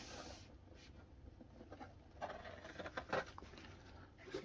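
Faint handling sounds of a zippered massage-gun carry case being opened: a brief rasp that stops shortly after the start, then scattered light knocks and rustles.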